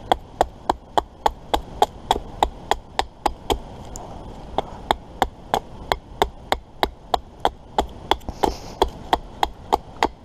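Small axe chopping wood in quick, even strokes, about three a second, with a pause of about a second near the middle.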